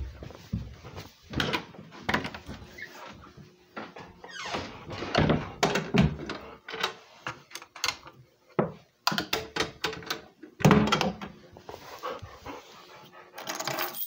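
A dog whining and giving short vocal sounds, with irregular knocks and handling noise in between.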